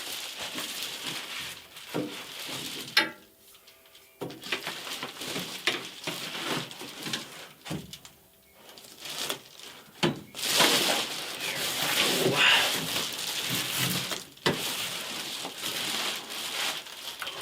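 Handling noise from work on metal conduit and its fittings: irregular rustling, scraping and knocks, with a sharp click about three seconds in and a louder stretch of scraping from about ten seconds in.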